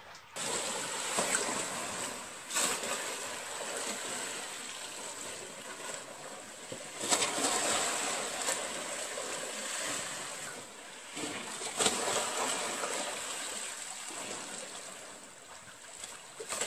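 Swimming pool water sloshing from side to side and slapping against the pool's edge, set in motion by earthquake shaking, with three louder surges of splashing.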